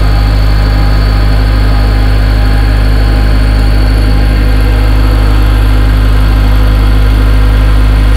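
Okuma CNC milling machine running, its end mill cutting Nylotron plastic: a loud, steady low machine hum with steady higher tones and an even cutting noise throughout.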